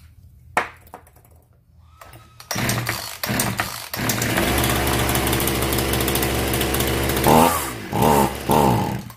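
Zenoah G3800 two-stroke chainsaw pull-started a few times. It catches about four seconds in and runs steadily, its pitch rising and falling near the end, then it dies. It is running only on the WD-40 sprayed into it as a starting aid, not on its own fuel.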